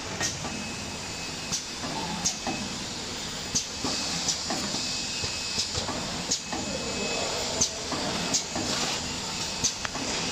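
Automatic cartoning machine running as it packs snack bars into cartons: a steady mechanical whir with sharp clicks and knocks about once a second as its mechanisms cycle.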